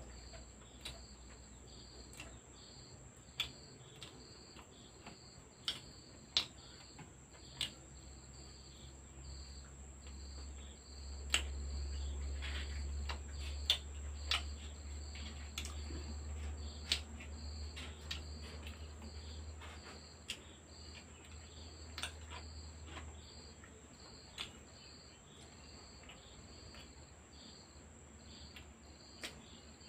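A cricket chirping steadily, about two chirps a second, over a thin high steady whine. Scattered sharp clicks of eating by hand from a plate. A low hum swells for several seconds in the middle.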